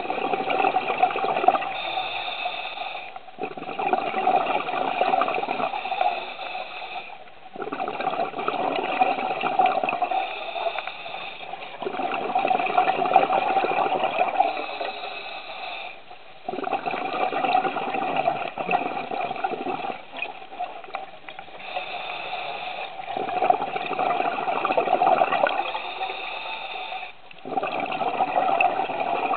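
Scuba regulator exhaust heard underwater: a rushing gush of exhaled bubbles roughly every four seconds, each lasting two to three seconds, with quieter gaps between.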